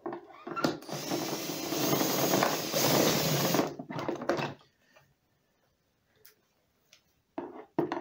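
Cordless drill-driver running for about three seconds, driving a screw into the vacuum cleaner's plastic housing, followed by a few short clicks.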